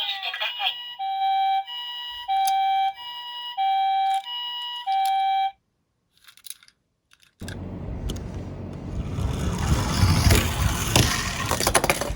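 Ambulance siren in the Japanese hi-lo two-tone pattern, alternating between a higher and a lower note about every 0.6 s, which cuts off about five and a half seconds in. After a short silence, a loud rattling rumble starts: toy vehicles rolling down a plastic slope.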